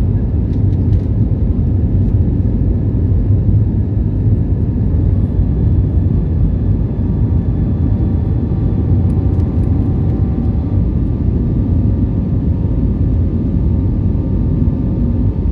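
Airbus A320 jet engines running steadily during departure: a deep, even rumble with faint steady engine tones above it.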